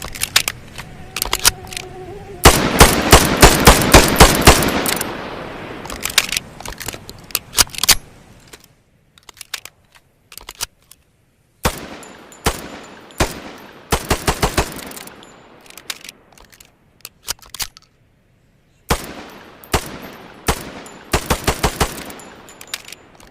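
Tokarev TT-33 pistol (7.62×25mm) firing in several fast strings of shots, each string a few seconds long, with ringing echoes after each shot. Fainter sharp clicks fall in the pauses between strings.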